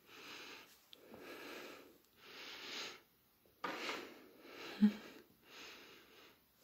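Soft breathing close to the microphone, a breath about every second. There is a brief low hum about five seconds in.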